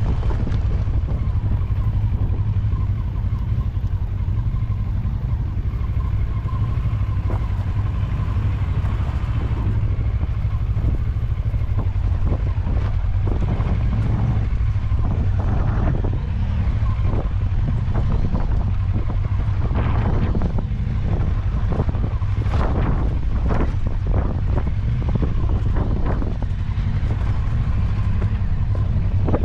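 Vehicle driving off-road with a steady low rumble and wind buffeting the microphone. Frequent short knocks and rattles start about halfway through.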